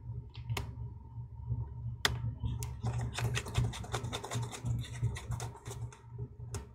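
Light clicks and taps of small parts and tools being handled on a MacBook Air during reassembly: a few separate clicks, then a fast run of clicking in the middle, over a steady low hum.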